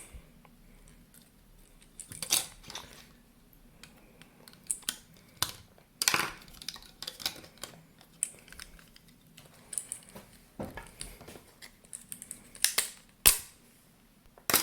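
Irregular sharp clicks, taps and snaps of a tool working on the plastic casing of a cheap Vivitar T027 digital camera as it is forced apart, the loudest snap about 13 seconds in.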